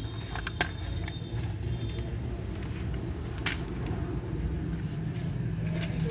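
A steady low rumble with a few sharp clicks, the loudest about three and a half seconds in.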